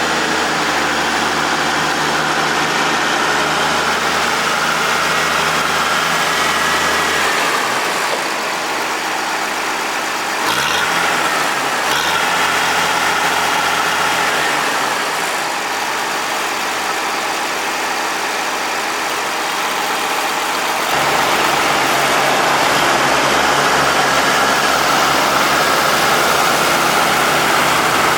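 Oliver 88WT backhoe's tractor engine running steadily, its note changing several times: it drops about seven seconds in, glides briefly near ten seconds, and picks up louder again from about twenty-one seconds.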